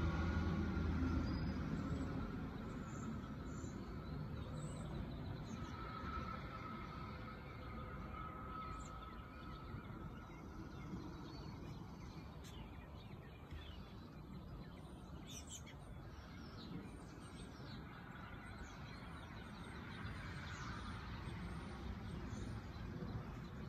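Outdoor ambience: a steady noisy hiss with a low rumble that fades over the first two seconds, and scattered faint, short high-pitched bird chirps.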